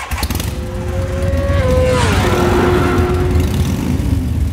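Logo sting built on a high-revving motorcycle engine over a deep low rumble; the engine's pitch drops about two seconds in and then holds steady.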